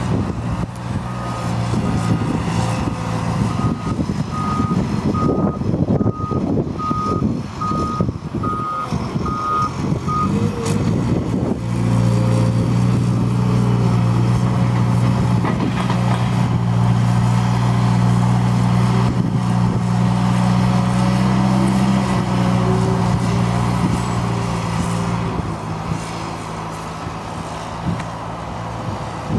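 Liebherr 538 wheel loader's diesel engine running, its reversing alarm beeping about once a second for the first ten seconds. About twelve seconds in the engine gets louder and holds steady under load, easing off again near the end.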